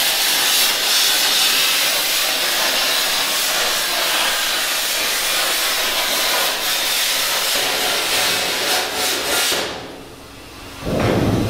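Plasma cutter cutting through a steel pipe wall: a steady, loud hiss of the arc and air jet that stops about ten seconds in. A louder low-pitched rumble comes in just before the end.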